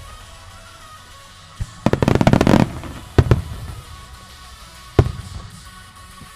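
Starmine fireworks going off: a single boom, then a rapid volley of shell bursts about two seconds in, followed by a few separate booms. Music plays underneath.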